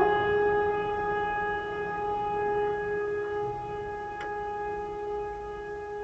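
A single steady drone note with rich overtones, held without change in pitch and slowly fading, from the background music; a faint click about four seconds in.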